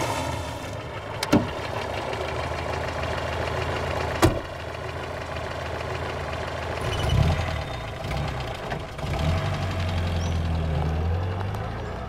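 Car engine idling steadily, with two sharp knocks about a second in and again three seconds later.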